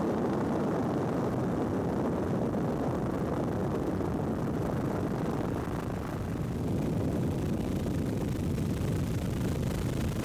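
Steady aircraft noise, mostly low-pitched, dipping slightly about six seconds in.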